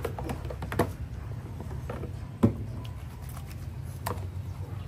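Scattered clicks and knocks in a plastic washbasin as a French bulldog puppy is lathered and rubbed in it, with one sharper knock about halfway through. A steady low hum runs underneath.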